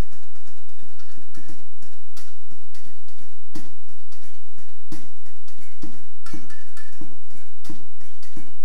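Found-object percussion: drumsticks beating a steady rhythm on blue plastic barrels, metal pots and steel bowls, with a cymbal. Quick strikes run between heavier accents, and from about three and a half seconds in the accents fall about every two-thirds of a second.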